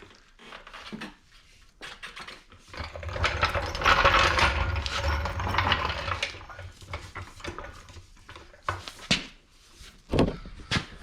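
Floor jack being moved into place under a snowmobile, a rolling, scraping noise with a low rumble lasting about three seconds, followed by a few separate knocks and clicks near the end.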